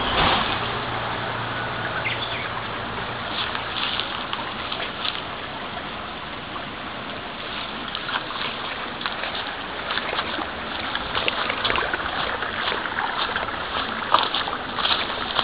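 Steady rush of flowing water in an old irrigation canal at its sluice gates, with scattered brief rustles and clicks on top that come more often near the end.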